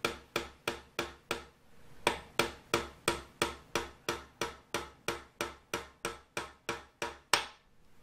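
A hammer tapping a small nail-like pin into the rear main bearing cap of a Ford 396 FE engine block, about three taps a second, with a short pause after the first second and a half. The last tap, near the end, is the loudest. The pin is being driven in to wedge the rear main side seal tight in the cap.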